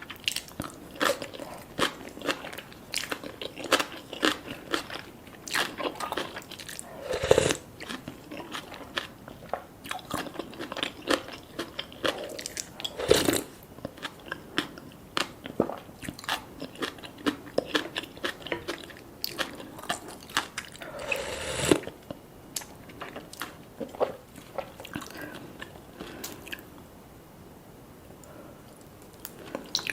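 Close-miked eating sounds: a person biting and chewing fish cake and gimbap, with many small crunching clicks and three louder bites spread through.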